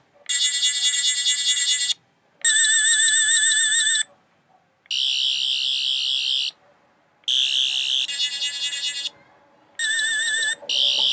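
Toy Tenth Doctor sonic screwdriver's electronic sound effect, a high buzzing warble, cycling through its different sounds. It comes in about six bursts of one to two seconds each, with short gaps between them.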